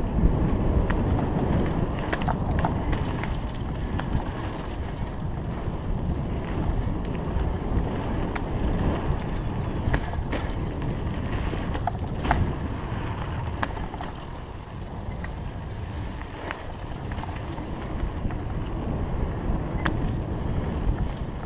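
Mountain bike riding a dirt singletrack: wind buffeting the microphone over the rumble of the tyres rolling on dirt, with scattered sharp clicks and rattles from the bike over bumps. A faint steady high tone sits underneath.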